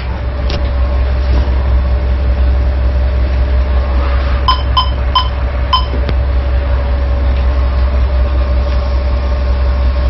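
Tugboat engine running steadily under a constant hum in the wheelhouse; about four and a half seconds in, four short electronic beeps come in quick succession.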